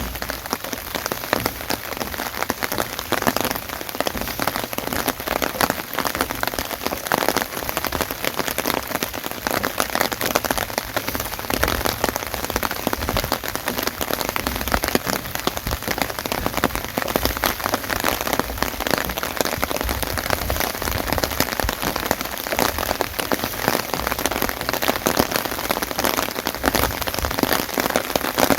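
Steady rain falling, with a dense run of individual drop hits close to the microphone.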